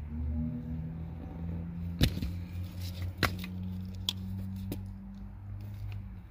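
Wire stripper pliers working on thin speaker wire, giving a few sharp clicks and snips, the loudest about two seconds in, over a steady low hum.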